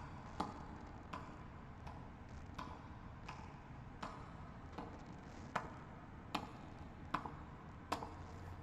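Slow, evenly paced footsteps of hard-soled shoes on a hard floor, a sharp click with a short ring about every three-quarters of a second, over a faint low hum.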